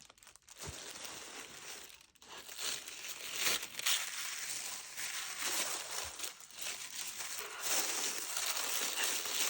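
Plastic baggie crinkling and rustling as it is pulled and torn open by hand. The crinkling comes in uneven spurts, with short lulls near the start and about two seconds in.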